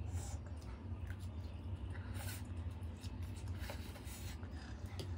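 A person eating instant noodles with a fork: soft slurping and chewing, with small clicks of the fork on a metal plate, over a steady low hum.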